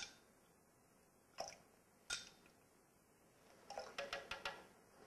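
Fresh lemon juice poured from a small glass into a blender jar, faint: the last drops fall as two short, separate sounds, then a run of small light clicks near the end as the glass is handled.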